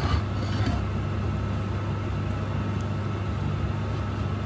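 Garage heater running with a steady low hum, with a few faint scrapes of a Stanley blade on the alloy sump plate in the first second.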